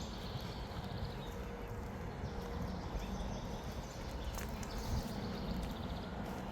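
A person breathing heavily and steadily close to the camera microphone while walking.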